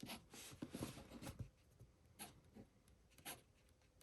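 Montblanc 221 fountain pen with a very fine nib writing on paper: faint scratchy strokes, a run of them in the first second and a half, then a few single ones. The slight scratchiness is, in the owner's view, just the very fine nib, since its tines are in line.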